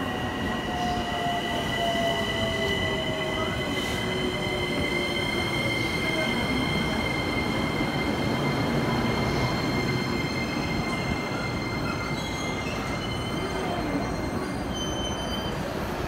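JR East Utsunomiya Line 15-car electric train pulling into the platform and braking to a stop. The cars rumble over a steady high squeal, and the motor whine falls in pitch over the first few seconds as the train slows. Short high squeaks come near the end as it comes to a halt.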